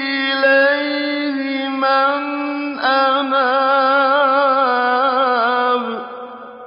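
A man's voice chanting Quran recitation in long, melodic drawn-out phrases with a wavering, ornamented pitch. It stops about six seconds in and leaves a reverberant tail.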